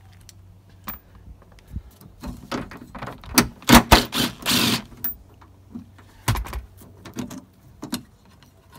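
Clicks, knocks and rattles of a metal wiper-motor bracket and its bolts being worked loose, with a brief run of a DeWalt 20V cordless driver about halfway through.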